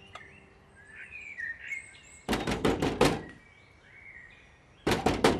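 Knuckles knocking on a metal door: a quick run of about five raps, a pause of nearly two seconds, then a second run of raps near the end. Faint bird chirps come before the first knocks.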